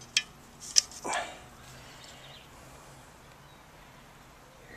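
Two sharp metallic clicks within the first second, from the parts of a cut-open refrigeration compressor being handled, followed by a short scraping noise, then only a low steady background.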